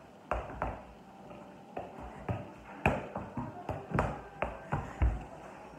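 A soccer ball being juggled off bare feet: a quick, irregular run of soft taps and thuds, a few of them louder.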